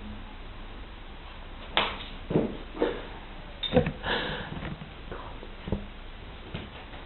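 A handful of short, irregular knocks and scuffs spread over a few seconds, one slightly longer rustle among them.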